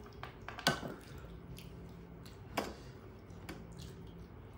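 Quiet eating sounds: hands squishing rice and curry, with two sharp clinks of a steel serving spoon against the dishes, the first about a second in and louder, the second near the middle.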